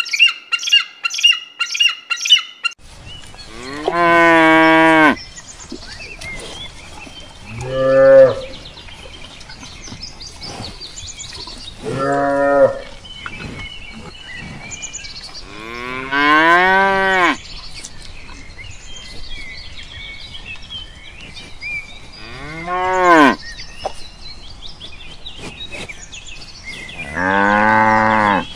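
A Steller's sea eagle's quick series of high, repeated calls for the first two or three seconds, then cattle mooing: six moos spaced several seconds apart, several of them rising and then falling in pitch.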